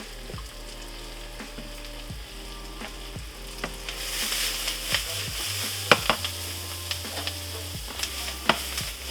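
Food sizzling as it fries in a hot pan and is stirred. The sizzle grows louder about four seconds in, with a few sharp clacks of a utensil against the pan.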